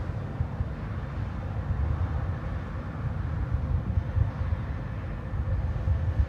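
Fireworks display heard from a distance as a continuous low, uneven rumble of booms.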